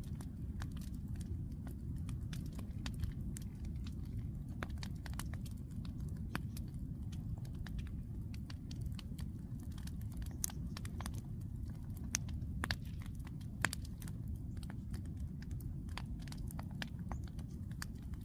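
Bonfire burning, with irregular sharp crackles and pops of burning wood over a steady low rumble. A few pops stand out louder.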